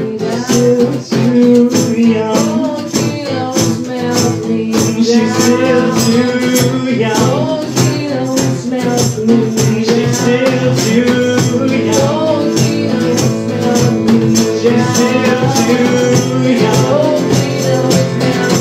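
Acoustic band playing an instrumental passage: acoustic guitar with steady rhythmic hand percussion.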